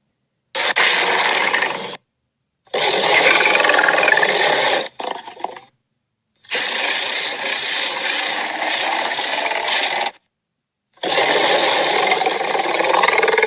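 Dinosaur creature sound effects: four separate loud, rough roar-like calls, each one to three and a half seconds long, cut apart by dead silence.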